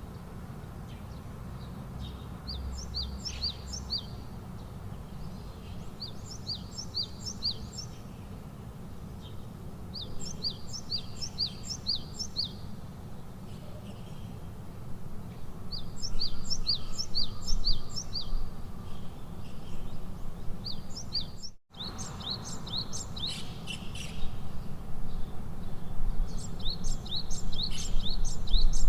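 A songbird singing the same short phrase over and over, each a quick run of four or five high, downward-flicking notes, repeating every four to five seconds, over a steady low rumble of outdoor background noise. The sound cuts out for an instant about two-thirds of the way through.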